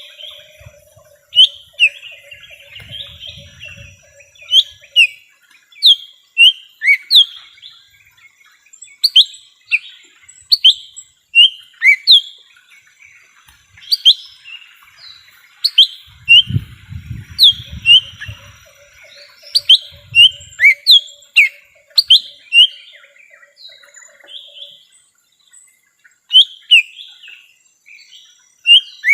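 Lesser green leafbird (cucak ijo mini) calling: a string of sharp, high whistled notes, each sweeping down in pitch, often in quick pairs with short gaps between. A faint buzzy trill runs underneath at the start and again near the end, with brief low rumbles about three seconds in and near the middle.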